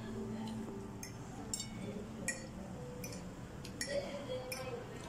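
Metal fork clinking against a plate while pasta is eaten: about six light, sharp clinks spread out, over faint background murmur.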